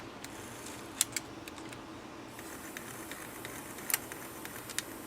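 Mechanism of a 1963 Mayfair TR-65 portable reel-to-reel tape recorder turning, clunking with irregular sharp clicks over a faint steady hum. Part of the mechanism has just been repaired with hardened JB Weld.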